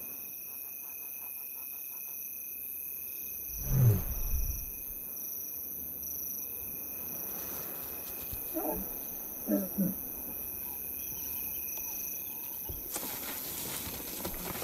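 Lioness giving soft contact calls to her hidden cubs, a signal that it is safe to come out. One loud low call comes about four seconds in, then a few shorter, higher calls around nine to ten seconds, over steady insect trilling.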